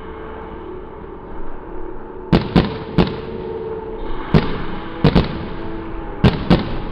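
Aerial fireworks bursting overhead: about eight sharp bangs in quick pairs and clusters, starting about two seconds in, each with a short ringing tail.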